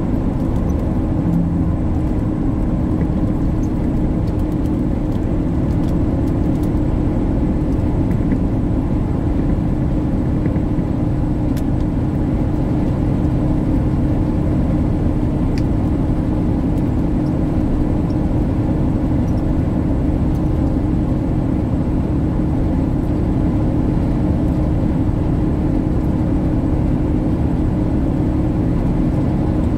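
Steady drone inside a tractor-trailer cab at highway speed: engine and tyre/road rumble with a constant low hum.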